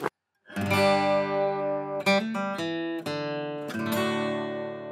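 Outro music: an acoustic guitar strumming a few chords whose notes ring on, starting about half a second in after a short click, and fading near the end.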